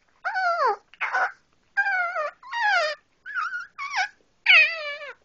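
A small dog 'talking': a run of about seven short whining calls, most sliding down in pitch, with the loudest about four and a half seconds in.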